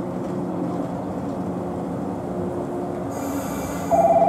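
JR West 113 series local electric train approaching along the platform, a low steady running hum. About three seconds in comes a brief high hiss, and just before the end a loud, fast-warbling tone starts.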